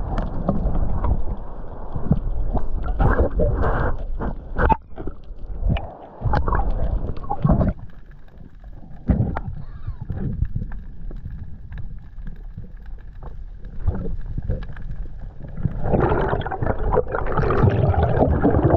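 Muffled underwater sound through an action camera's waterproof housing as a spearfisher free-dives: water moving past the housing, with scattered sharp clicks and knocks. It quiets in the middle, then a louder churning of water comes in near the end.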